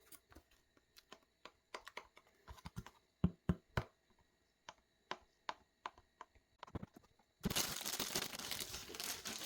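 Scattered light clicks and taps from handling an electronic drum kit's cymbal pad and its packaging, then, about seven and a half seconds in, plastic wrapping crinkling.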